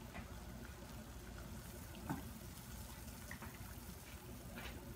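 Faint watery noise with a few light clicks, from a pot of salted water heating on the stove.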